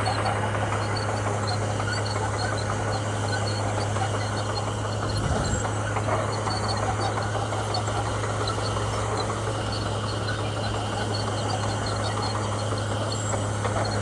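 Komatsu bulldozer's diesel engine running steadily with a constant low hum, with faint insect chirping high above it.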